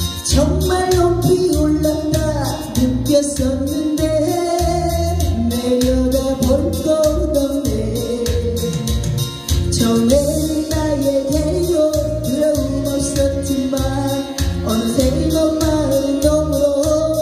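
A woman singing a Korean pop song into a handheld microphone over an amplified backing track with a steady drum beat.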